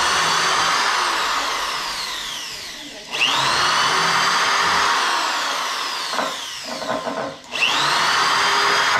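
Power drill working into 2x4 wood: a whine that rises as the motor spins up, then sinks slowly as it bogs down in the wood. It stops and starts again twice, about three and seven and a half seconds in, with a few knocks shortly before the last start.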